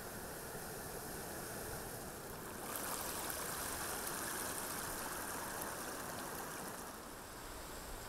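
Seawater washing over tide-pool rocks, a steady rushing sound that swells about three seconds in and eases again near the end.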